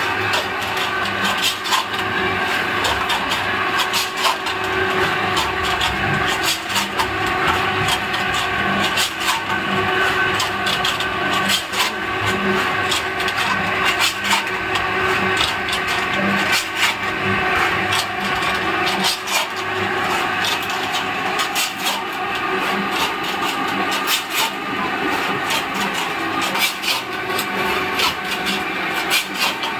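Pan mixer running: its electric drive hums while the heavy roller wheel and scraper blades grind and scrape through a lime, sand and soil mix, with frequent gritty clicks throughout.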